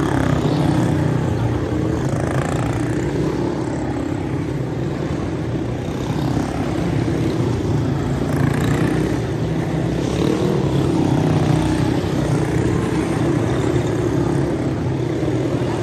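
Several quarter midget race cars' small single-cylinder engines buzzing together as a pack laps a small oval, the pitch rising and falling as cars pass and lift through the turn.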